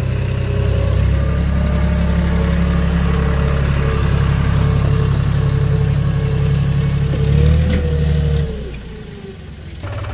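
John Deere 5050D tractor's three-cylinder diesel engine running steadily under load as it pulls a loaded tipping trailer. The engine surges briefly, then drops away about eight and a half seconds in.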